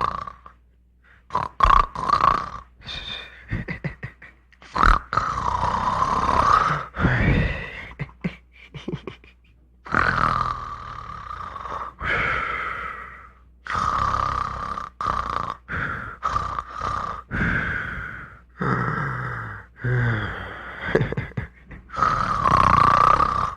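Comic snoring sound effect: a man snoring in irregular, uneven breaths broken by voiced noises.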